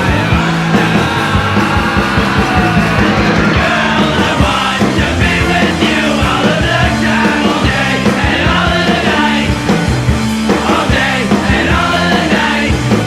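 Hardcore punk song played by a full band, with a shouted lead vocal over loud, driving instruments.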